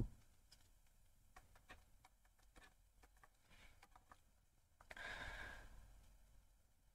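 Near silence with faint, scattered light ticks of a stylus writing on a tablet, and a soft breath out about five seconds in.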